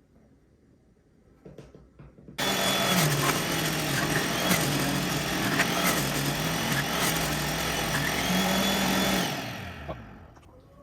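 NutriBullet centrifugal juicer switching on about two seconds in and running loud, its pitch dipping and recovering several times as cucumbers are pushed through it. It switches off and spins down near the end. A few small clicks come before it starts.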